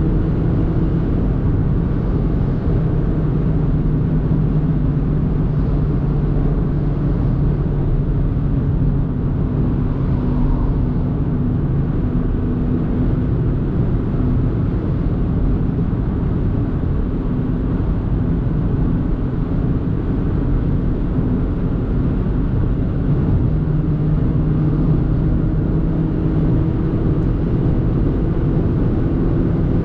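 2024 Audi A3 Sportback's 1.5 TFSI turbocharged four-cylinder petrol engine humming steadily under steady tyre and road noise at motorway speed. The engine note fades somewhat in the middle and comes back, rising slowly in pitch, over the last few seconds.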